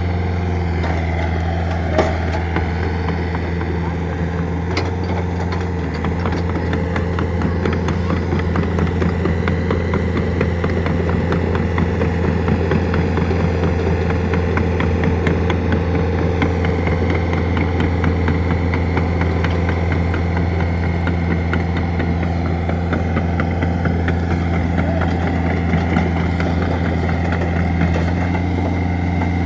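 Excavator's diesel engine running steadily, with a few sharp clicks and a fast rattle over much of it.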